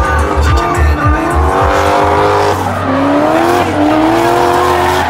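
Drift car's engine revving hard, its pitch rising and falling again and again, as the car slides through the course with its tyres squealing.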